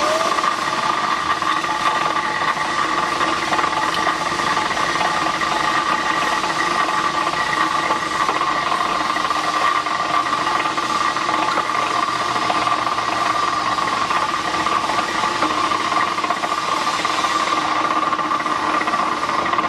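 Steel cutting machine running steadily with no cut being made: an even mechanical hum with a few constant tones over a hiss.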